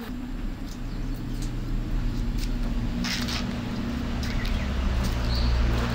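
A low, steady motor drone, with small birds chirping now and then, mostly near the end.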